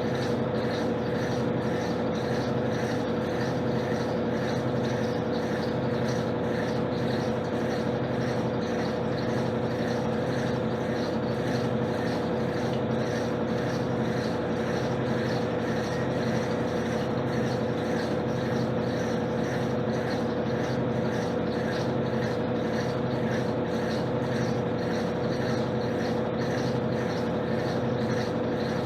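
Electrolux LTC10 top-loading washing machine spinning: a steady motor hum with a faint pulsing about once a second.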